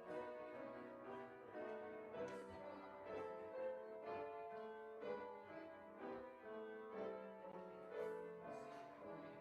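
Solo piano playing slow classical-style music: a steady flow of struck notes and chords that ring on, played quietly.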